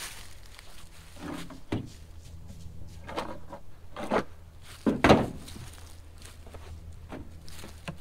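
Knocks and clunks of a chainsaw being handled and set down on a pickup truck's tailgate, with the loudest clunk about five seconds in, over a steady low hum.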